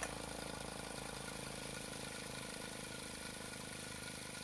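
3D-printed pulse motor running on a 2.9-volt supply, its rotor spinning under the iron-core drive coil: a steady mechanical hum with a fast, even ripple.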